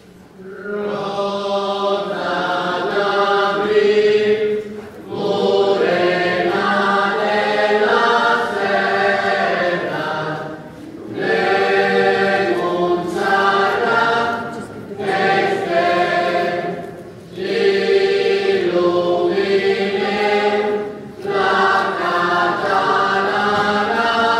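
A group of voices singing a hymn together, in sung phrases of a few seconds each with short breaks between them: the closing hymn after the dismissal of the Mass.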